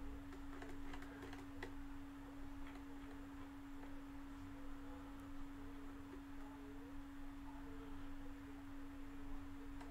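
A faint steady hum at a single pitch, with a few light clicks in the first two seconds and a couple more a little later, fitting a computer mouse being clicked and scrolled.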